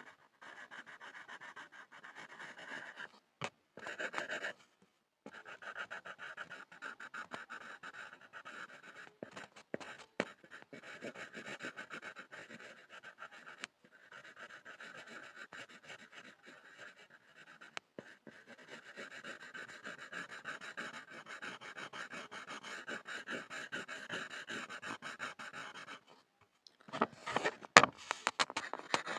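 Pencil scribbling on a board: a fast, steady run of scratchy back-and-forth strokes with a few brief pauses, growing louder and sharper near the end.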